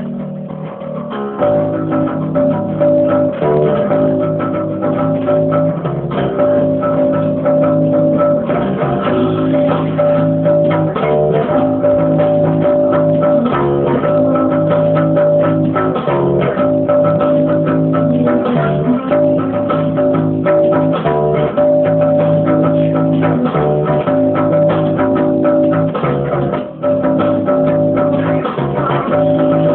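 Electric bass guitar playing a rock song's bass line along with guitar, over a steady run of sharp percussive hits, in a repeating riff.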